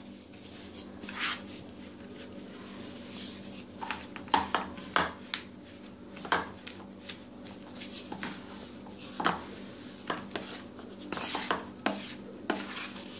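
Wooden spatula scraping and knocking against a nonstick frying pan as it stirs a thick, sticky mix of roasted sesame seeds and melted jaggery, in scattered strokes a second or more apart. A steady low hum runs underneath.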